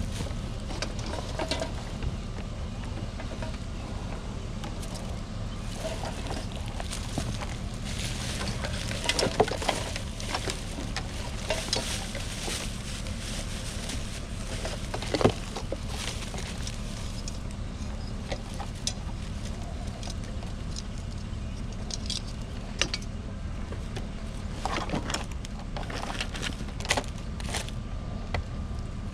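A steady low drone, like a running engine, under scattered knocks and clatters of objects being handled, with the sharpest knocks about nine and fifteen seconds in and a cluster near the end.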